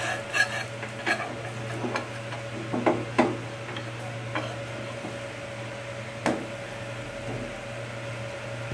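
Metal spatula scraping and knocking against a tawa (flat griddle pan) as a pancake is loosened and flipped: a handful of short knocks and scrapes spread through, the loudest a little after three seconds, over a steady low hum.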